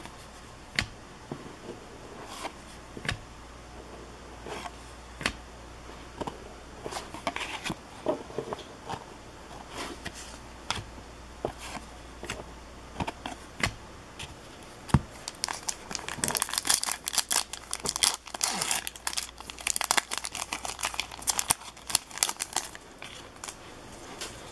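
2016-17 O-Pee-Chee hockey cards being handled and flipped one by one: soft slides of card stock with occasional sharp taps. About two-thirds of the way through comes a dense run of crinkling and rustling as the cards are shuffled quickly in the hands.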